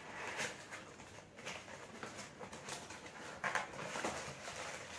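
Brown paper and cardboard packaging being torn and pulled open by hand. It is an irregular crinkling and rustling, with a sharper rip about three and a half seconds in.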